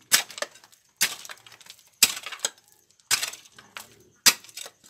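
A small long-handled hoe chopping into gravelly soil: five strikes about a second apart, each followed by a short rattle of loose dirt and stones.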